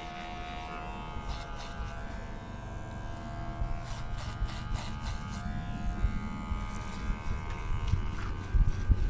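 Electric hair clipper buzzing steadily while cutting a man's hair, its pitch wavering slightly as it moves through the hair. A low rumble grows louder near the end.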